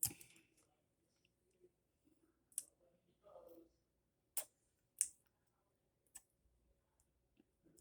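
Wet mouth clicks and smacks from licking a lollipop: about five sharp, separate smacks, the first and one about five seconds in the loudest, with a short soft hum from the mouth a little past three seconds in.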